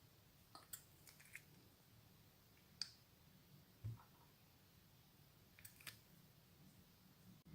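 Near silence, with a few faint short clicks and taps a second or more apart.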